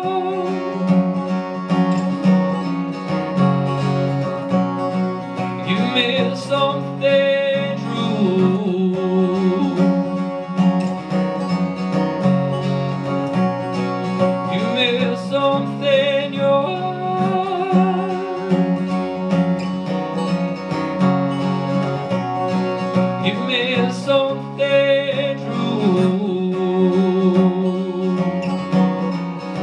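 Acoustic guitar playing a steady chord pattern, with a wordless melody with vibrato carried over it in phrases that repeat about every nine seconds.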